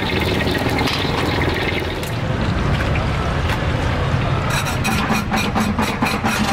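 Busy street noise: an engine running with a steady rush of noise, and a quick run of clicks and clatter from about four and a half seconds in.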